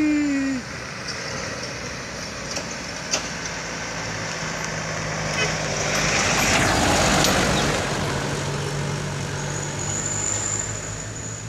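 Diesel trucks on a mountain road: a horn blast falling in pitch ends about half a second in, then a truck engine runs steadily, swelling to its loudest as a truck passes close by around six to seven seconds in.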